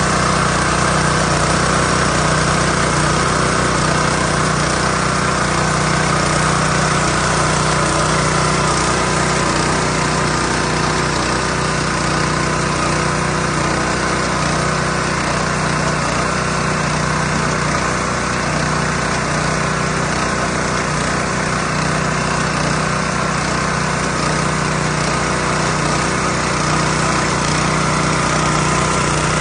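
The small engine of a hand-guided thermoplastic road-marking machine running steadily at an even speed.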